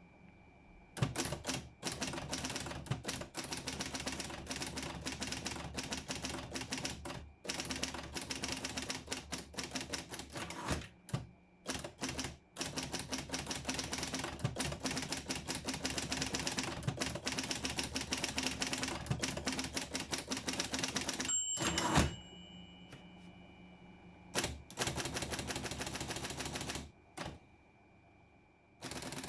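Underwood Documentor electric typewriter typing in fast, dense runs of keystrokes over a faint steady whine. About three quarters through, a brief ring and a single loud clunk break the run, followed by shorter bursts of typing.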